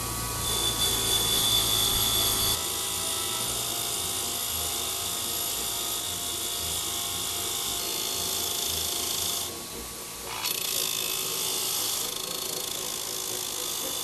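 Bench grinder running with a wire wheel brushing rust off steel parts, cleaning them for welding: a steady motor whine under the scratchy hiss of the wire on metal. The scratching is heaviest over the first couple of seconds and drops out briefly just before ten seconds in as the part comes off the wheel.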